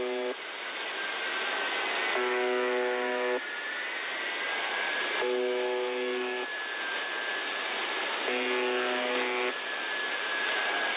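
UVB-76 'The Buzzer' shortwave station on 4625 kHz, heard through a radio receiver in upper sideband: a coarse buzz tone about a second long repeats roughly every three seconds over steady static hiss. Behind the buzzes, a faint whistle-like tone slowly drifts up and down in pitch.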